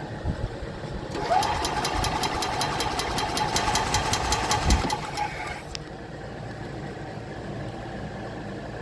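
Starter cranking the EZGO Express L4 EFI golf cart's gas engine for about four and a half seconds, a steady whine with rapid, even ticking, stopping without the engine catching. This is a no-start: the engine is getting no spark and no fuel.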